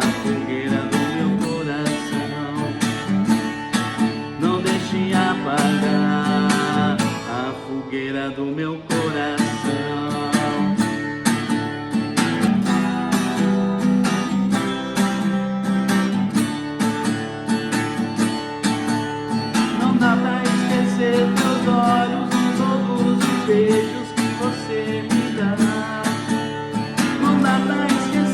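Acoustic guitar strummed in a steady rhythm, playing chords as a song accompaniment, with a brief break about eight seconds in.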